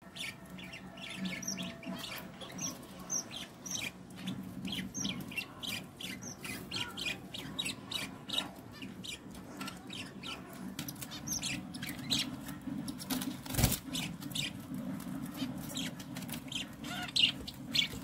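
Young budgerigars chirping: many short, high chirps in quick succession over a low background hum, with a single sharp knock about two-thirds of the way through.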